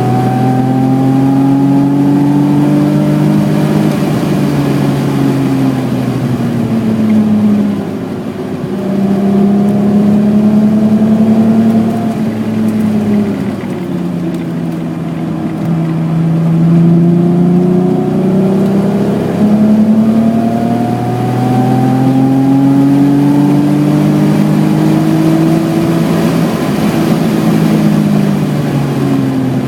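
The BMW E28's 3.6-litre engine is under hard load. Its pitch climbs for a few seconds at a time as the car accelerates, then falls away as it comes off the throttle or changes gear, several times over.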